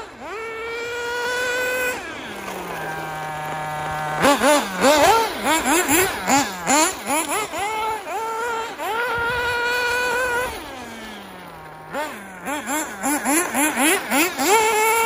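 Kyosho MP9 TKI4 RC buggy's nitro engine revving hard, high-pitched and screaming at full throttle in sustained runs. It drops to a low steady drone around three seconds in, then comes back in long strings of quick throttle blips. The engine is still new and running a bit rich.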